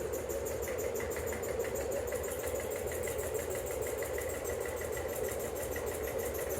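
Hampton Bay Glendale ceiling fan running at high speed with oversized 42-inch Littleton blades fitted: a steady motor hum and blade whoosh with a fast, even pulsing.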